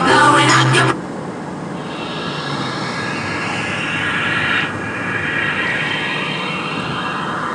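Road and engine noise from inside a moving car: a steady rush with an engine whine that rises slowly in pitch, drops a little under five seconds in, then climbs again, as an engine pulls through a gear change while accelerating. Music cuts off about a second in.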